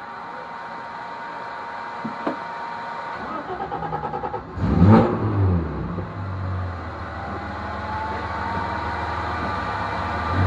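BMW race car's engine cranked by the starter, catching about halfway with a quick rev, then settling into a steady idle. A faint steady whine sits under the first few seconds.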